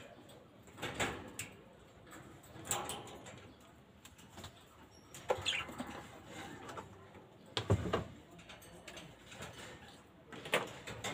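Irregular knocks and scrapes of handling and cleaning, with a heavier thump about three-quarters of the way through. Short chirps of African lovebirds come in between, one about halfway.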